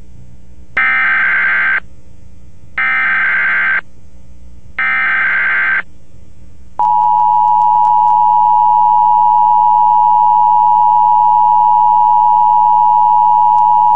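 Emergency Alert System activation on AM radio: three one-second bursts of SAME header data, a harsh digital warble, followed about seven seconds in by the steady two-tone EAS attention signal. The alert is a National Weather Service tornado warning.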